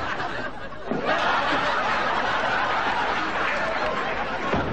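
Sitcom studio audience laughing, a dense crowd of laughter that swells up about a second in and holds steadily.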